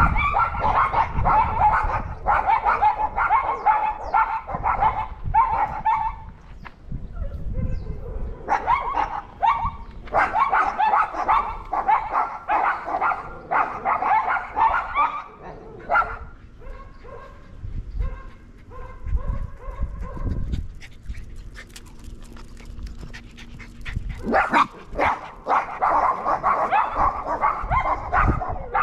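Dogs barking rapidly at a neighbour's dog, a territorial warning. The barking comes in long bouts, with a quieter lull a little past halfway before it starts up again.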